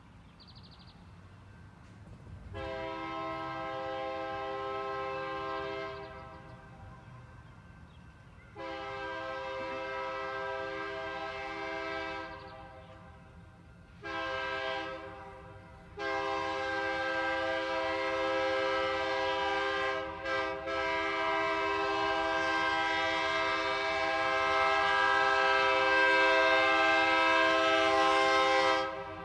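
Diesel locomotive air horn sounding the grade-crossing signal: two long blasts, a short one, then a long one held for about thirteen seconds that grows louder as the train approaches.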